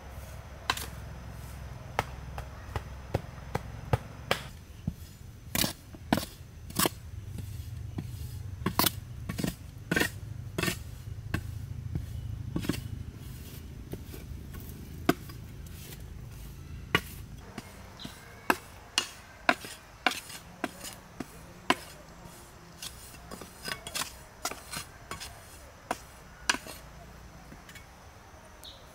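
Hand tools striking packed earth and bamboo stakes: a long series of sharp, irregular knocks, over a low rumble that fades about seventeen seconds in, after which the knocks come sparser.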